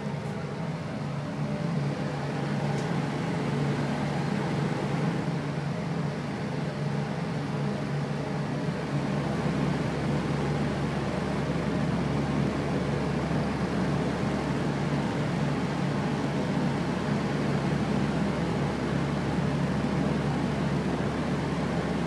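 Electric fan running steadily: an even whooshing rush with a low motor hum underneath. The low rumble grows a little stronger about nine seconds in.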